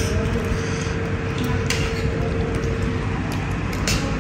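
Steady low mechanical rumble with a steady hum that fades out a little over three seconds in, and a few light clicks.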